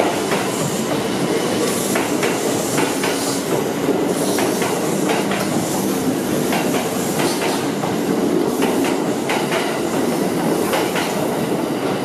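Kintetsu 80000 series Hinotori electric limited express pulling out of an underground station platform and running into the tunnel. A steady rolling rumble is broken by scattered sharp clicks.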